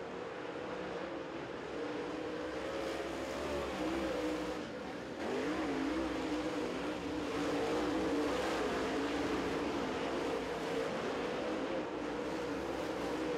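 Super Late Model dirt-track race car's V8 engine running hard through a turn, its pitch rising and falling as the throttle is worked. It gets louder about five seconds in.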